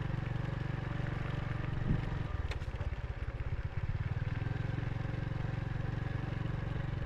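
Motorbike engine running steadily while riding along a road, with a brief knock about two seconds in.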